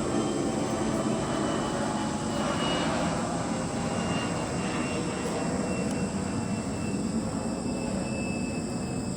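A steady mechanical drone, like a distant engine, easing off a little near the end.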